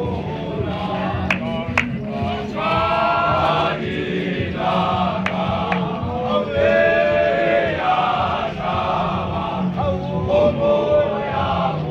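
A choir of men of the Zion Christian Church singing a hymn-like chant together in unaccompanied harmony, with a few sharp knocks breaking through.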